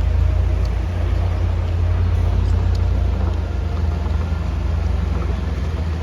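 Heavy military vehicle engine running with a deep, steady rumble.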